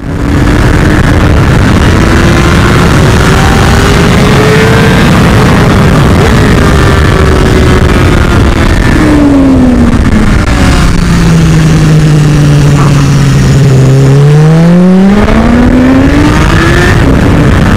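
BMW S1000RR sport bike's engine at speed, heard from the onboard camera under heavy wind rush. The engine note climbs slowly, falls away as the bike slows through the middle, holds low for a couple of seconds, then rises steeply as it accelerates hard again.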